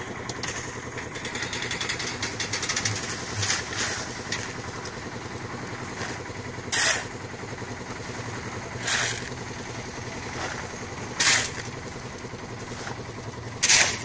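Engine of a concrete mixer-lift running steadily while wet concrete slides out of its tipped hoist bucket. Four short, sharp scrapes, about two seconds apart, stand out as shovels work the concrete.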